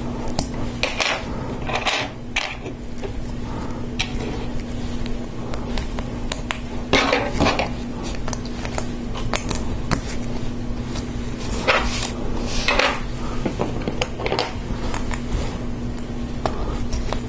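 LEGO Technic plastic parts clicking and knocking together as pins and connectors are pushed into lift arms, with irregular small clicks and a few brief rattles. A steady low hum sits underneath.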